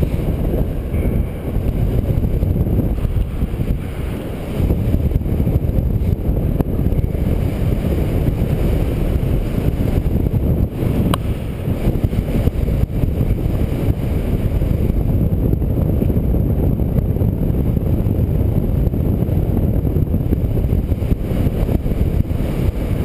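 Wind rushing over the camera microphone of a paraglider in free flight: a loud, steady low rumble that gusts. There is one small click about eleven seconds in.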